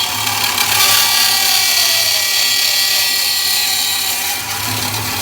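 Hand-operated cut-off saw with a 350 mm blade, its motor running with a steady high whine over a dense hiss and a low hum.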